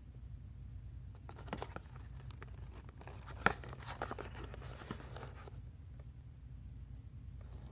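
Power bank's retail packaging being opened and handled: a run of irregular crinkling and tearing sounds lasting about four seconds, with one sharp snap about three and a half seconds in, over a faint steady low hum.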